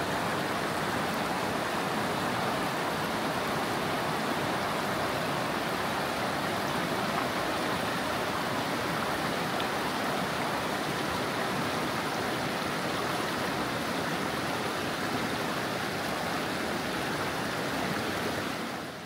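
Creek water rushing steadily, a constant even flow without breaks.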